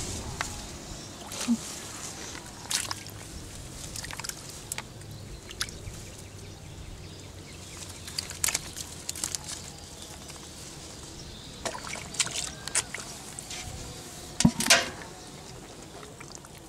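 Hands and bare feet splashing and sloshing in a shallow, muddy ditch while grabbing for catfish, with short splashes every second or so and the loudest pair near the end.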